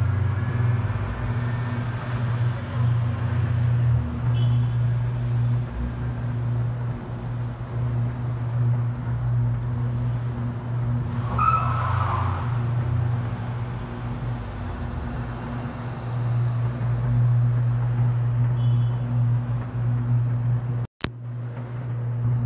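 Steady low electrical hum from a failed substation transformer arcing, with a deep drone beneath it. A brief higher sound comes about halfway through, and the audio cuts out for a moment near the end.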